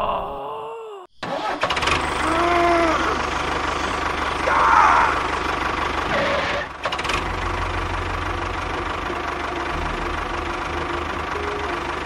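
Tractor engine starting up about a second in, after a brief silence, then running steadily with a low knocking chug. A few short sliding tones sound over it in the first five seconds.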